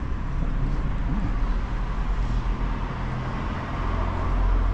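Road traffic noise: a car passing on the street, its tyre and engine noise steady and swelling near the end.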